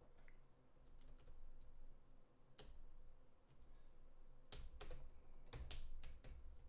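Keystrokes on a computer keyboard: a few scattered keys at first, then a quicker run of typing over the last two seconds.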